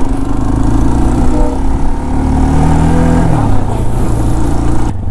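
Vehicle engine running under way, its pitch climbing for a second or so in the middle and then dropping back.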